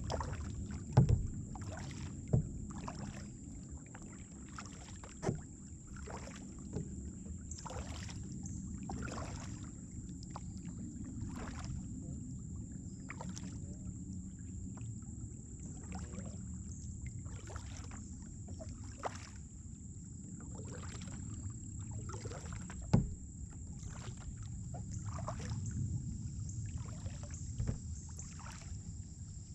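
Kayak paddle strokes: the blades dip and splash about once a second as the paddler strokes steadily, over a steady low rumble. A few sharp knocks stand out, the loudest about a second in and again past the middle.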